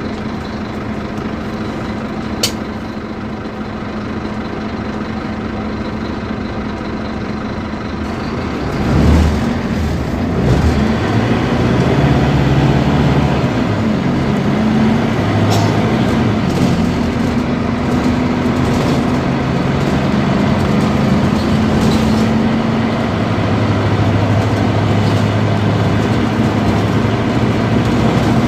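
Scania K250UB city bus's diesel engine idling steadily, then about eight seconds in pulling away and running louder under load, its note stepping between pitches. A few sharp clicks sound along the way.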